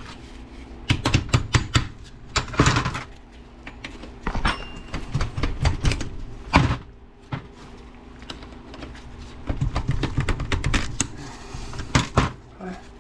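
Hand tools working on the metal shift rail parts of an NP205 transfer case: irregular sharp metallic clicks, clinks and knocks in clusters, the loudest single knock about six and a half seconds in.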